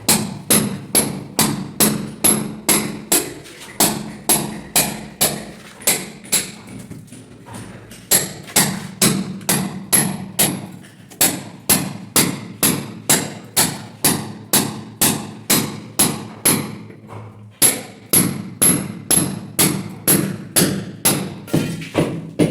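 Hammer striking metal in a steady rhythm, about two or three blows a second, each with a short ring, with brief pauses twice.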